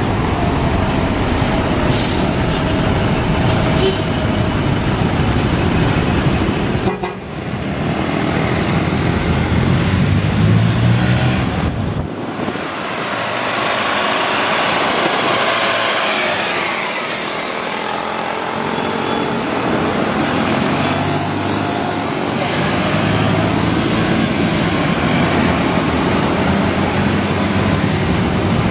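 Heavy road traffic with large buses going past, their engines and tyres swelling and fading, and vehicle horns tooting.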